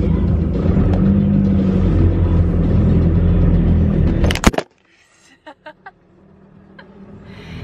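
Van engine running, heard from inside the cab as a loud steady low drone. It cuts off suddenly with a sharp knock about four and a half seconds in, and a few faint clicks follow.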